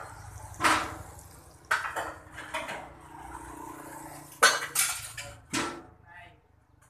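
Steel pieces clanking and scraping on a metal workbench: a handful of sharp metallic knocks with short ringing, over a faint low steady hum.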